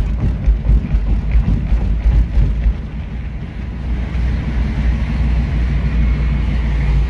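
Road noise from inside a moving car: a low rumble of engine and tyres, with uneven wind buffeting for about the first three seconds, then a steadier drone.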